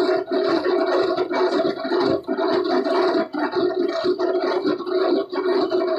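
Steady drone of factory machinery running in a corrugated cardboard box workshop.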